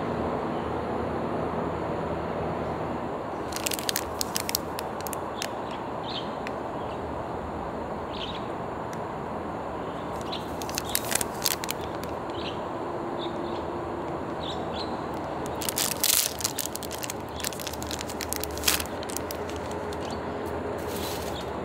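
Crinkling and crackling of a plastic-wrapped self-heating pack handled in the hands, in several short bursts, the wrapper torn off and handled in the longest bursts near the end. A steady outdoor background hum runs underneath.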